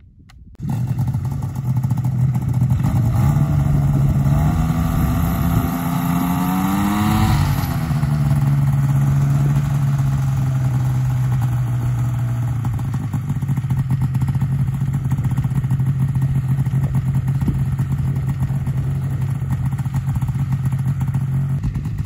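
Paratrike's propeller engine, fitted with a reduction gearbox and two carburettors, running with its propeller turning. It comes in abruptly, rises in pitch in a few steps to a brief rev peak about seven seconds in, drops back, then holds a steady pitch.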